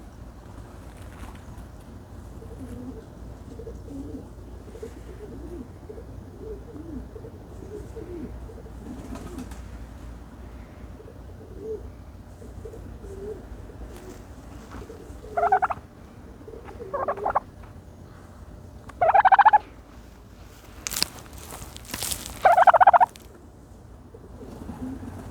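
A turkey, dust-bathing, makes a run of soft, low notes, then four louder, higher calls in the second half. Two brief, sharp, noisy bursts come among the last calls.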